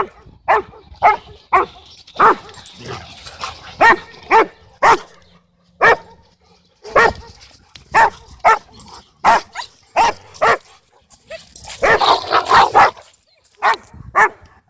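A dog barking over and over, short separate barks about two a second, with a quick flurry of barks near the end.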